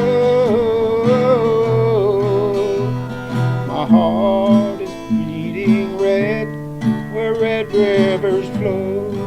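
Instrumental outro of a country song: acoustic guitar with a wavering melody line held over steady chords.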